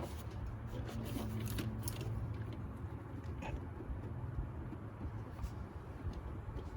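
Faint scattered clicks and scrapes of tools being handled while the oil filter is being loosened, over a low steady hum.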